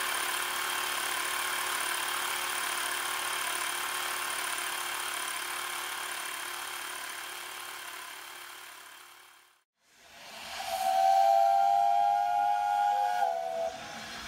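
Xiaomi portable electric air compressor running steadily with a whine, driving a model horizontal steam engine on compressed air at only 4 to 6 PSI. The sound fades out about nine seconds in. After a short gap, a whistle sounds a steady two-note tone for about three seconds.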